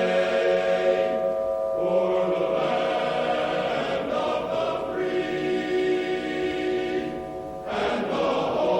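Choir singing a slow national anthem in long held chords, with a brief dip between phrases near the end.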